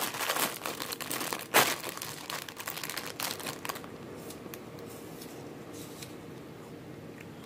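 Plastic food wrappers crinkling as hands work at a packet, with one loud crackle about a second and a half in. The crinkling dies down after about four seconds to a few faint rustles.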